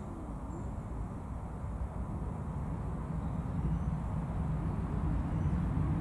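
Steady low rumble of outdoor background noise, with no clear bird calls above it.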